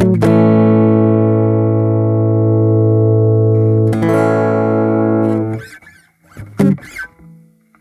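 Steel-string flat-top acoustic guitar with a Stratocaster-style body, heard through its LR Baggs M1 pickup plugged straight into the recorder. A chord is strummed and left ringing, restruck about four seconds in, then fades out. A short strum follows near the end.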